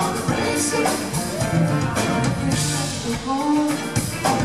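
Live rock band playing, with drum kit and bass guitar under amplified singing.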